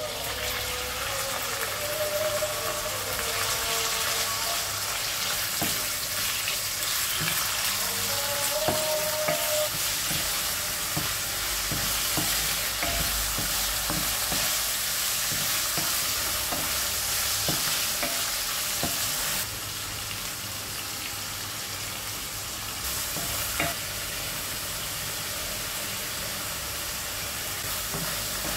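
Boneless chicken pieces frying in hot oil in a wok, a steady sizzle, with a wooden spoon stirring and tapping against the pan. The taps come most often in the first half, and the sizzle is a little quieter after about twenty seconds.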